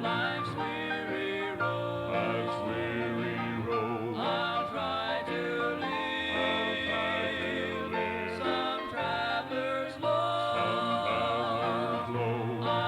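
Gospel quartet music played from a cassette tape: a wavering melody line over steady accompaniment.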